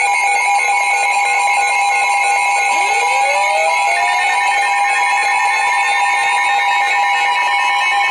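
Emergency Alert System attention signal: a loud, steady two-tone alarm that precedes a National Weather Service severe thunderstorm warning. Pulsing tones sound along with it, and a further tone sweeps upward about three seconds in.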